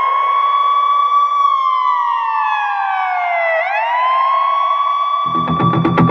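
Siren wailing: the pitch rises, holds, sinks slowly, then rises again and holds. A music track with a steady beat comes in about five seconds in.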